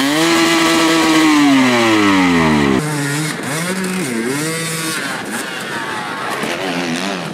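Dirt bike engine revved high and held, then falling away. About three seconds in it cuts to another dirt bike whose revs dip and rise in short blips.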